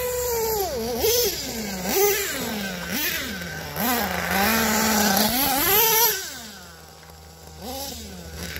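Red Cat Earthquake 3.5 RC truck's small nitro engine revving up and down in repeated throttle bursts, its pitch rising and falling several times, then dropping to a quieter idle near the end before one more short rev.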